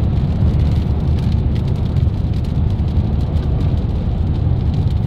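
Steady low rumble of a car driving on the road, heard from inside the cabin: engine and tyre noise.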